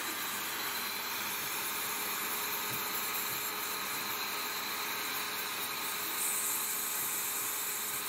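A small handheld electric dust-cleaning brush running steadily over a CPU heatsink, giving a steady hiss.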